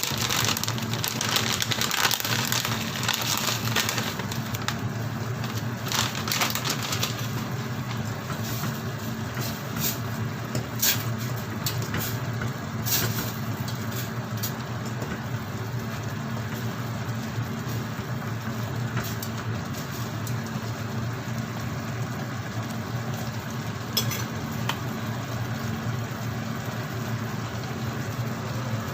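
Noodle pot cooking on the stove with a steady low hum, while dried seaweed is added: crackling, rustling and clicks over the first half or so, and one more click later on.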